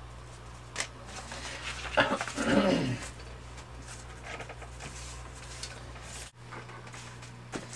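Card stock and paper scraps shuffled and laid into piles by hand: faint rustling and light taps against a steady low hum. About two seconds in comes a brief voice-like sound that falls in pitch.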